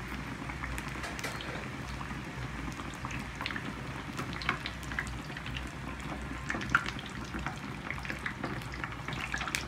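Hot oil sizzling around a battered bread sandwich deep-frying in a pan, with frequent crackles and pops that grow busier a few seconds in.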